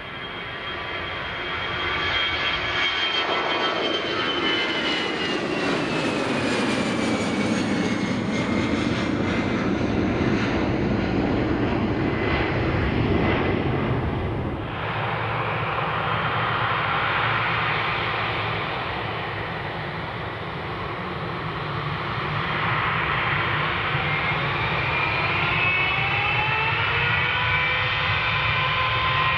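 Jet airliner turbofan engines at takeoff power going past, a loud roar whose whine falls in pitch over the first several seconds. About halfway the sound dips sharply for a moment, and near the end several whines climb in pitch as engines spool up.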